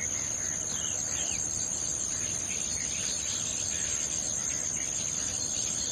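A steady, high-pitched insect drone, unbroken and unchanging, with faint short bird chirps scattered through it.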